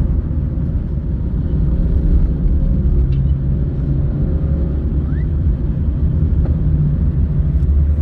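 Road noise inside a moving car's cabin: a steady low rumble of engine and tyres on the road.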